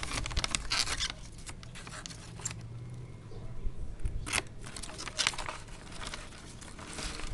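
Scissors snipping through paper in several short runs of cuts with brief pauses between: a cluster at the start, then more about four to five seconds in and near the end.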